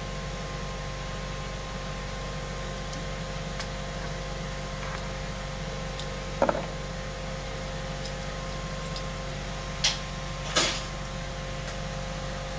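A steady mechanical hum from a kitchen appliance runs throughout. A sharp ringing clink of utensils comes about six and a half seconds in, and two short sharp knocks come near the end.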